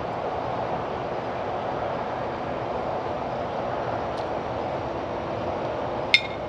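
Steady rushing background noise, with a single sharp clink of cutlery about six seconds in.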